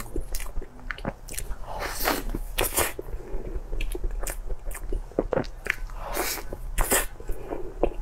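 Close-miked chewing and biting of meat on the bone: irregular wet clicks and crunches, a few louder ones near the middle and near the end.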